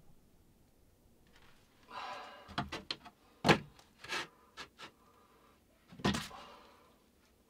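Wooden boards being handled and fitted while a shelf unit is assembled: a scraping, creaking stretch followed by a few separate sharp knocks of wood on wood.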